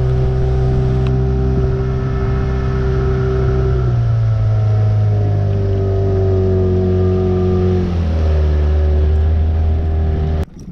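Outboard motor running steadily as the boat travels, its pitch dropping a little about four seconds in and again about eight seconds in; it stops abruptly just before the end.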